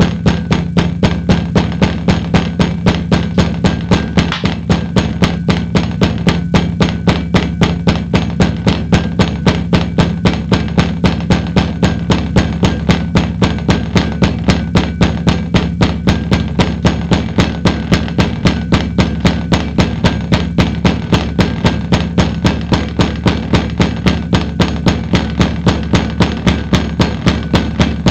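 A steady low hum under an even, fast clicking, about three to four clicks a second.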